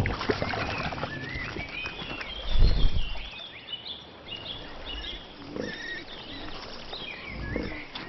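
Small birds chirping and singing in short rising and falling phrases throughout, with low sounds from wild boars foraging in shallow water; the loudest is a short low burst about two and a half seconds in.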